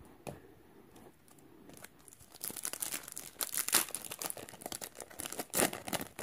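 Foil Magic: The Gathering booster pack wrapper being torn open and crinkled: quiet at first, then a dense, uneven run of crackling rustle starting about two seconds in.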